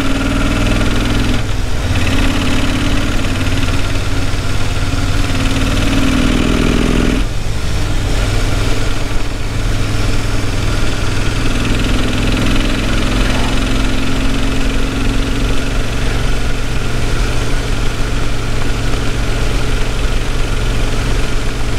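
Kawasaki VN1500 V-twin engine running at steady cruising speed from the rider's seat, with wind noise over the microphone. A rising engine note drops off about seven seconds in.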